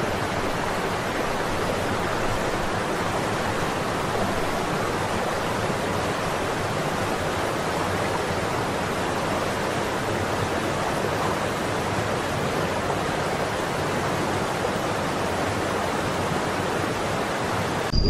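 Waterfall pouring steadily, a constant even rush of falling water.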